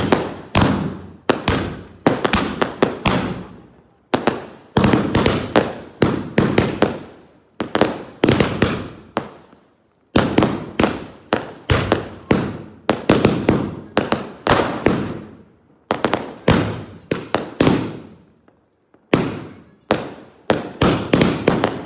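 Firecrackers going off in rapid runs of sharp bangs, several a second, with brief lulls between runs.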